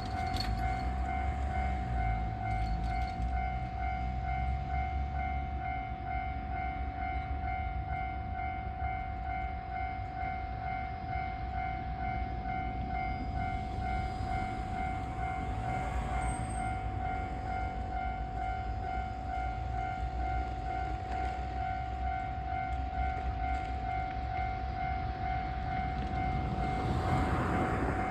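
Railway vehicle's brakes making a slight odd noise: a steady high-pitched whine on one unchanging pitch with overtones, over a low rumble.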